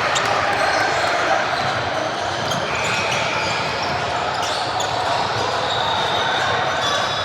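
Basketball game noise in a gym: a ball bouncing on the court over a steady din of voices in the hall, with a few short high squeaks.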